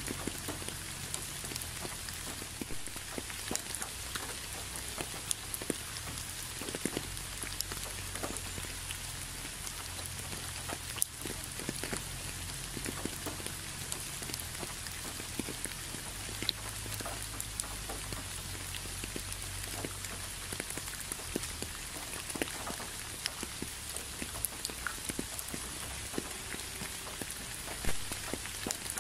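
Steady rain falling on leaves, with many separate drops striking close by over a low, even rumble. A couple of louder drops stand out, about eleven seconds in and near the end.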